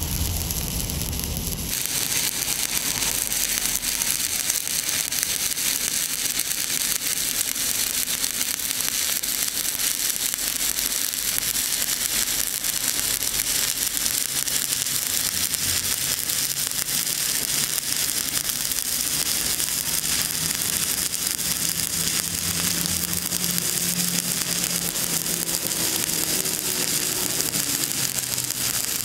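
Stick (shielded metal arc) welding arc, crackling and sizzling steadily as a flux-coated electrode burns along a horizontal joint in steel plate.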